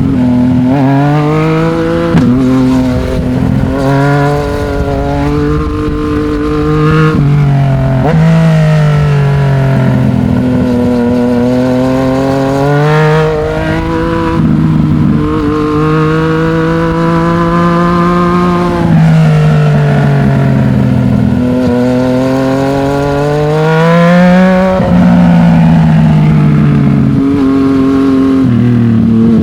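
Yamaha MT-09's inline three-cylinder engine running through a Black Widow 200 mm aftermarket exhaust under way. The revs climb again and again, each climb broken off by a sudden drop as the gears change, with a few slower falls in pitch.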